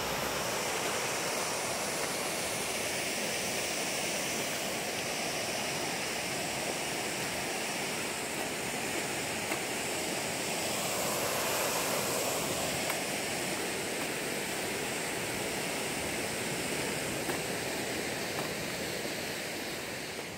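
Steady rush of a mountain stream, water pouring over a concrete weir.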